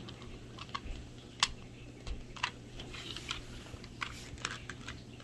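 Small plastic building-block pieces clicking as they are handled and pressed together, in irregular light clicks with a sharper one about a second and a half in.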